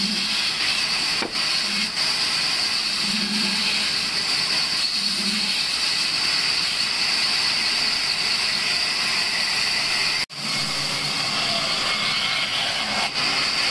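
Large vertical band saw running and cutting through a wooden log, a steady high whine over a hiss. The sound drops out for an instant about ten seconds in, then carries on the same.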